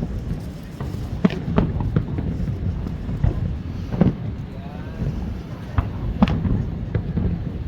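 Aerial fireworks shells bursting at an uneven pace, sharp bangs coming roughly every half second to second over a steady low rumble.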